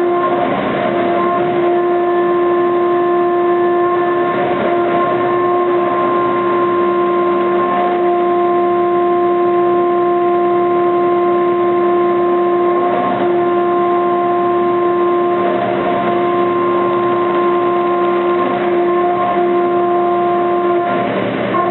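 CNC milling machine cutting aluminium at a 2 mm depth of cut and 15,000 mm/min table feed. The cutter makes a loud, steady whine of several tones over a noisy hiss, with brief breaks a few times.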